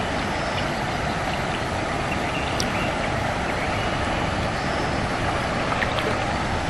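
Steady rushing of a fast-flowing river current, an even noise with no distinct events.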